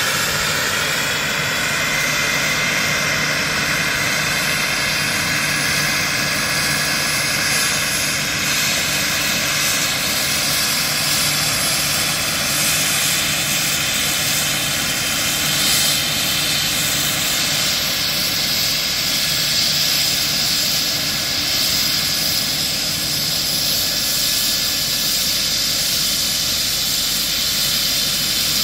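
A radio-controlled scale Alouette II helicopter runs steadily, with engine and rotor noise, as it hovers low and settles onto the grass. Its pitch dips slightly in the first couple of seconds.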